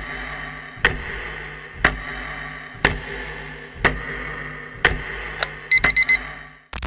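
A clock ticking about once a second over a steady low hum, used as a countdown timer, then a quick run of short high beeps near the end.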